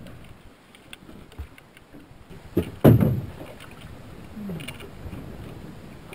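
A netted coho salmon being hauled over the side into an aluminum fishing boat: scattered knocks and one loud thump about three seconds in, over steady low background noise.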